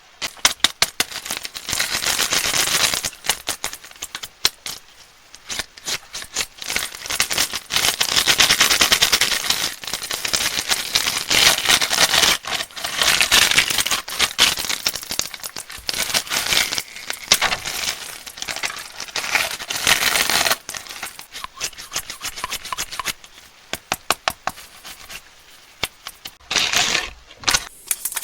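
Crinkly candy wrappers crackling as sweets are unwrapped, in dense stretches of a few seconds with short dips between, thinning to scattered clicks and rustles in the last third.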